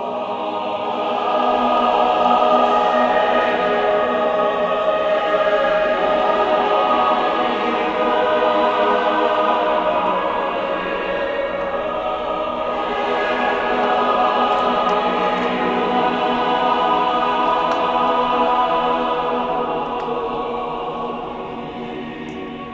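Background music of choir-like voices holding long, slowly swelling chords.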